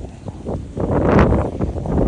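Gusty wind buffeting the microphone, a low rushing noise that swells and drops in strength.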